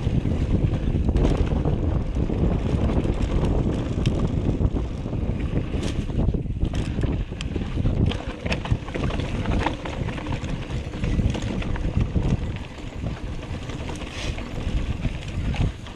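Mountain bike descending a dry dirt trail: steady wind noise on the microphone with tyre rumble on the dirt, and frequent short clicks and rattles from the bike over bumps.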